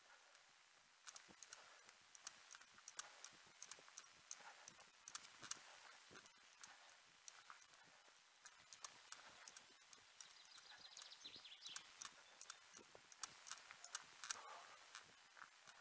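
Footsteps of a person running: a quick, even patter of faint strikes.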